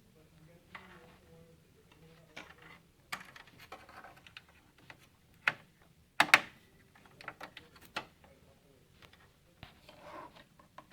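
Scattered clicks and light plastic knocks of hands removing RAM modules from a desktop computer's memory slots, the loudest a sharp snap about six seconds in.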